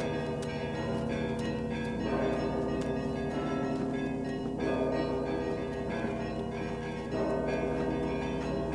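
Orthodox church bells ringing: small bells struck in quick succession over a large bell that tolls about every two and a half seconds.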